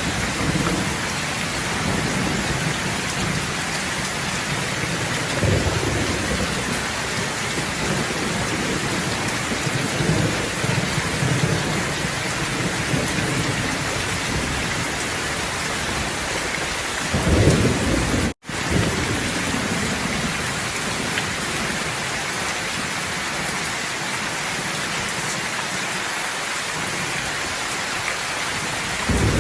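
Steady heavy rain hissing, with low rolls of thunder swelling in and out; the loudest rumble comes about seventeen seconds in, and the sound cuts out for an instant just after it.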